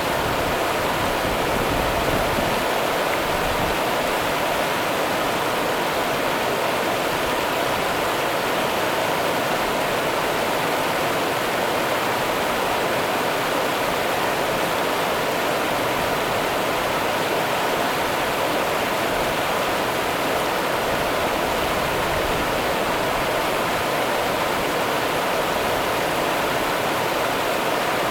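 Rio Grande river water running steadily over its bed, a constant rushing with no breaks.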